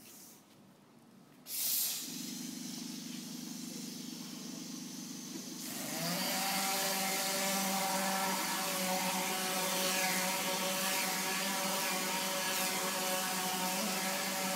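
Plastering machine starting up: a sudden hiss of air about a second and a half in, then a steady motor hum. About six seconds in a second motor spins up and the sound grows louder, settling into a steady machine drone over a hiss of air.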